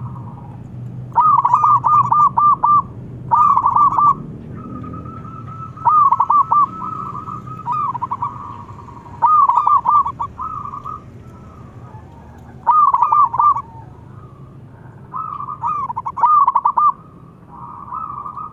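Zebra doves (perkutut) cooing: six loud phrases of quick, bubbling staccato coos, each lasting about a second, spaced a few seconds apart, with fainter coos in between.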